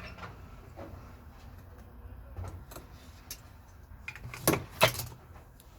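Pocket knives being handled: a few light clicks and ticks, then two louder sharp clacks close together about four and a half seconds in.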